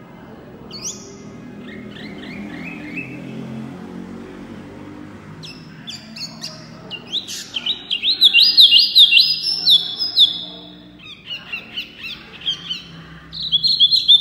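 Chinese hwamei singing: a few soft rising whistles at first, then from about five seconds in a loud, fast run of repeated whistled phrases that pauses briefly and starts again near the end.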